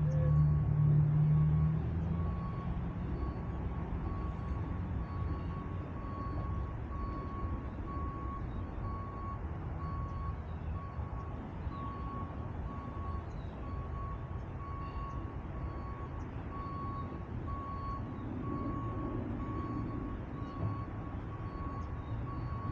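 A vehicle's reversing alarm beeping steadily at an even pace over a low engine rumble, which is loudest in the first two seconds.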